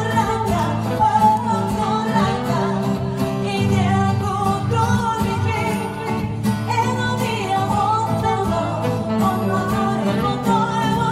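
A woman singing a pop song live into a microphone, accompanied by strummed acoustic guitar and saxophone.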